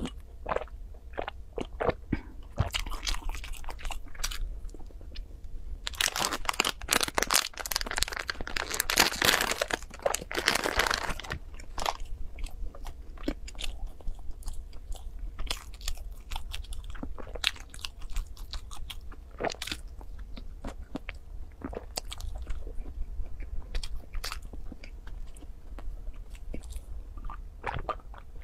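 Close-miked eating sounds of a person biting, pulling apart and chewing soft baked buns and sipping milk: a run of small wet clicks and smacks, with a louder stretch of dense rustling about a quarter of the way in that lasts some five seconds.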